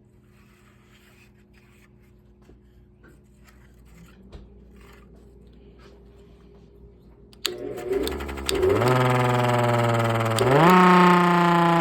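Bench grinder switched on about two-thirds of the way in, spinning a 3D-printed air raid siren: a loud wail that climbs in pitch in two steps and holds. Before that, only faint clicks and handling noise over a low hum.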